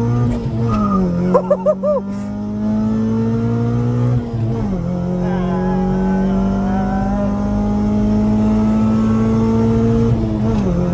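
Honda B16A DOHC VTEC four-cylinder with a Spoon N1 exhaust, heard from inside the cabin, pulling hard through the gears. The engine note climbs steadily in each gear and drops at upshifts about a second in, about four and a half seconds in and again near the end. A few short chirps sound just after the first shift.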